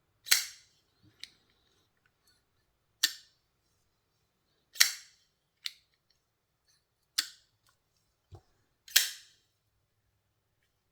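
TWOSUN TS328 folding knife being flicked open and snapped shut, about seven sharp metallic snaps spaced a second or two apart. The action is being tested after the pivot tension was readjusted.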